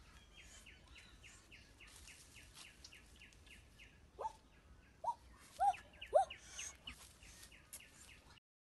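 Wild birds calling: a quick run of short high chirps, about four a second, then from about four seconds in four louder, lower whistled notes, each rising and falling, over faint outdoor background noise.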